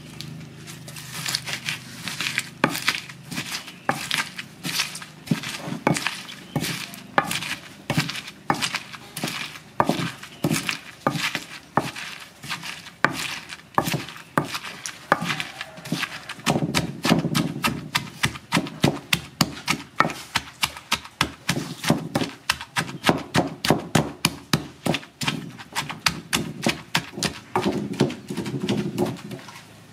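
Wooden pestle pounding chilies, garlic and shallots with salt in a stone mortar, grinding them into a chili paste. The strikes come quickly and steadily, about two to three a second, each a sharp knock of wood on wet food against stone.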